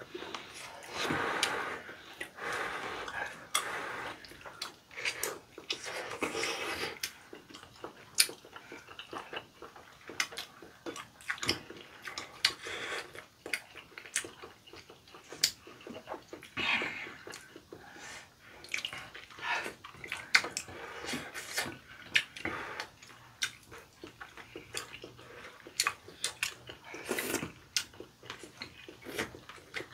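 Eating sounds of chewy, saucy tteokbokki rice cakes: wet slurps and smacking mouth noises in short bursts, with sharp clicks of chopsticks and small wet ticks scattered between them.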